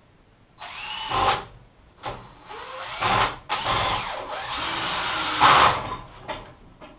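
Electric drill-driver driving wood screws into a timber frame, in several short runs over about five seconds.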